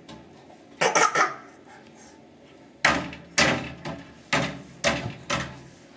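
A baby slapping a wall mirror with open palms: three quick slaps about a second in, then a run of slaps about two a second.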